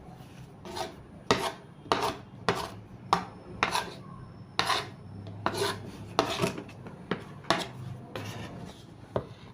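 A knife cutting chin chin dough on a cutting board in quick repeated strokes, each a short scraping chop, about one and a half a second.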